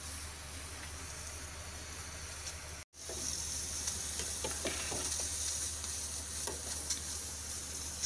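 Steady hiss of pots cooking on a gas stove. The sound cuts out briefly about three seconds in, then returns with a louder high hiss and a few light clinks of a steel ladle in a steel pot of water.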